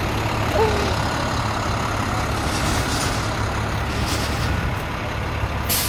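Tow truck engine idling steadily with a low drone, and a short, sharp hiss near the end.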